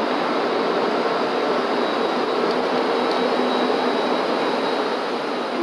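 MBTA HSP-46 diesel passenger locomotive passing close by, its engine and cooling fans giving a loud, steady drone with a low hum under it.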